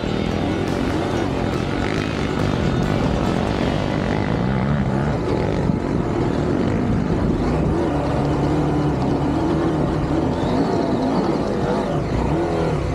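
Off-road motorcycle engines running and revving, their pitch rising and falling continuously.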